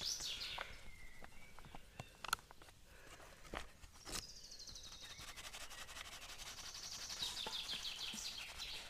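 A songbird singing: fast trilled phrases that fall in pitch, heard three times, with a few soft knocks in between.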